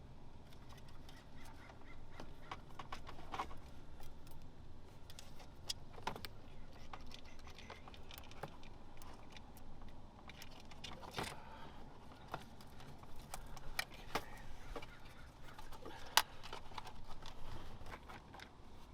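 Scattered plastic clicks and light rattles of cable and zip ties being handled and fastened under a car's dashboard, with one sharper click about three-quarters of the way through.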